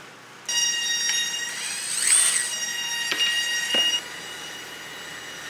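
A steady, high-pitched squealing whine made of several tones, starting abruptly about half a second in, with a brief sharper sweep in the middle. A couple of sharp clicks sound near the end, and the whine then carries on more quietly.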